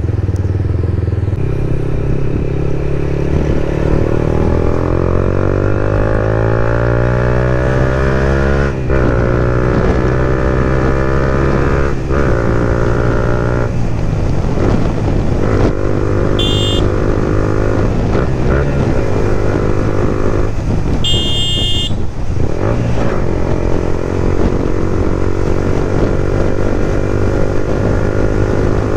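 Yamaha MT-15 V2's single-cylinder engine through a loud aftermarket exhaust, accelerating hard through the gears. The pitch rises and drops back at each upshift during the first half, then holds nearly steady at cruising speed. Two short high beeps sound about halfway through, the second one longer.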